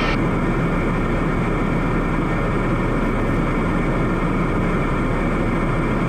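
Steady drone of a Piper Meridian M500's Pratt & Whitney PT6A turboprop engine and propeller heard from inside the cockpit in flight, an even rushing noise with a constant hum and a few steady whining tones.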